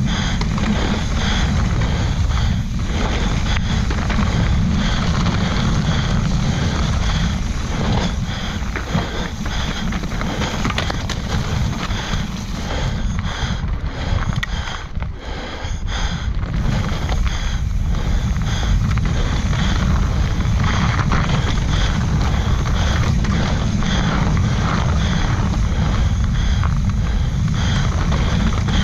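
Wind buffeting the microphone of a camera riding along on a mountain bike descending a dirt trail, with tyre noise and a steady run of knocks and rattles from the bike over rough ground.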